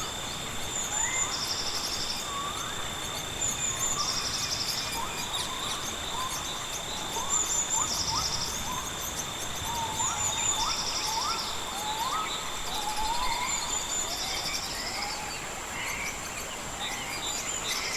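Rainforest ambience: a steady high insect drone, with a pulsed insect trill repeating about every two seconds and many short, upswept chirping calls over it. One of the steady high tones drops out about three-quarters of the way through.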